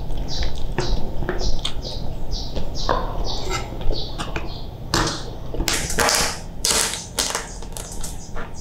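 A knife cutting into a boiled crustacean's shell, with wet chewing: a quick, irregular run of sharp crackling snaps, thicker and louder in the second half.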